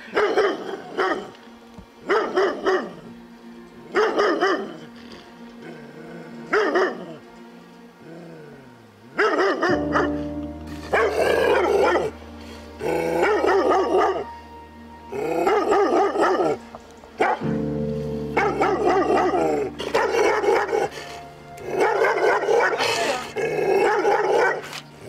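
A dog barking over and over in short bursts, each burst a second or two apart. From about ten seconds in, music with a steady low bass plays under the barking.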